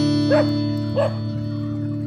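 A dog barking, two short barks about half a second apart, over music with held guitar chords.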